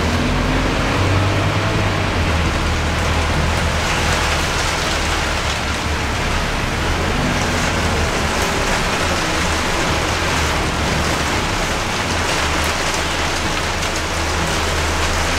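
Heavy rain beating on the windows and body of a Scania K230UB city bus, heard from inside the cabin, over the steady low drone of its Scania DC9 diesel engine.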